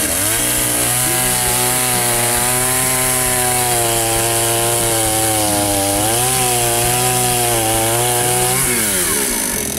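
Gasoline two-stroke chainsaw running at high revs while cutting through a thick tree log. Its pitch dips briefly and recovers about six seconds in, then falls away near the end as it winds down.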